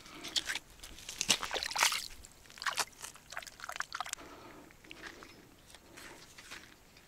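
Water splashing and sloshing in quick irregular bursts, loudest in the first two seconds, then thinning out to a few faint splashes.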